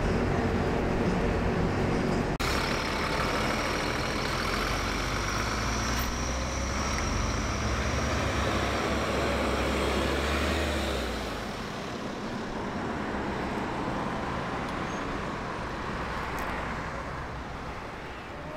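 Moving bus heard from inside, then after a sudden cut a city bus running close by at the roadside. Its low engine rumble drops away about eleven seconds in, leaving fainter steady road traffic noise.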